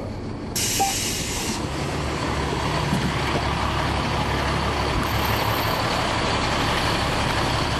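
Aboard a 2004 Neoplan AN459 articulated bus, heard from the rear of the cabin: a sharp hiss of released air comes about half a second in and lasts about a second. Then the Caterpillar C9 ACERT diesel engine runs louder and steady.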